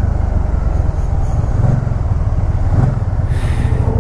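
Can-Am Spyder RT's Rotax 990 V-twin engine running under way at low speed, a smooth, steady low drone whose pitch briefly rises twice. A short hiss comes near the end.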